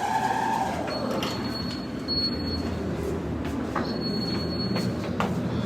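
Hotel elevator arriving and its sliding doors opening: a steady low mechanical rumble with a few sharp clicks and a faint high whine.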